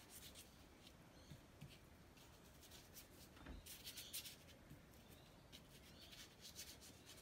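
Faint scratchy strokes of a paintbrush dabbing and scrubbing paint onto paper, a few scattered strokes with a denser run about three and a half to four seconds in.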